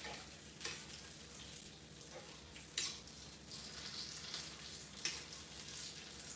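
Sausage patties and bacon sizzling on an electric grill plate, a steady frying hiss, with three sharp taps of a metal fork against the grill as the patties are turned, the loudest a little under halfway through.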